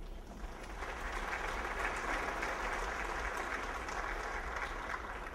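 A church congregation applauding: many hands clapping together. The clapping builds over the first second or two, then holds steady.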